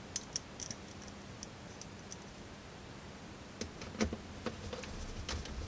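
Scattered light clicks and taps of a screwdriver and small metal and plastic parts being handled on an opened VCR chassis during reassembly. There is a quick cluster in the first second and a few louder clicks around four seconds in.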